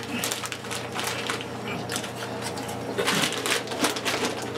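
Thin plastic crisp packet crinkling and rustling as it is handled, followed by rummaging among snack packets in a cardboard box, with a denser patch of crackling about three seconds in.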